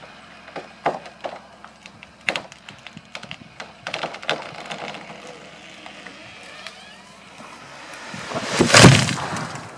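Grand fir tree cracking and splintering in sharp snaps as it gives way, then a building rush as it comes down, ending in a heavy crash on the ground near the end.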